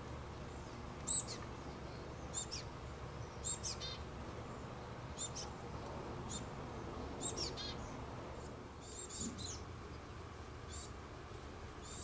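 Small songbirds giving about a dozen short, high chirps at irregular intervals, the loudest about a second in, over a steady low background hum.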